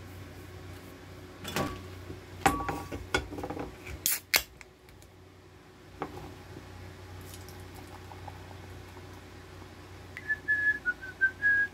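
A Yebisu aluminium beer can handled with a few clicks and cracked open with a sharp snap and hiss about four seconds in; a glass beer mug is set down on a wooden cutting board at about six seconds. Near the end the beer is poured while someone whistles a few high, wavering notes.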